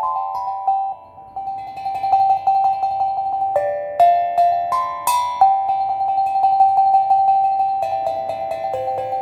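Steel tongue drum playing a slow, spontaneous minimalist melody: single struck notes ringing on and overlapping, with a short lull about a second in.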